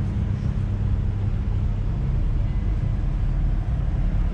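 Car engines idling, a steady low rumble.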